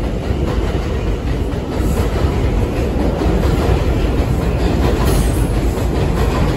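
R142 subway train cars running past along the station platform: a loud, steady noise of wheels on the rails, heaviest in the low end and a little louder from about two seconds in.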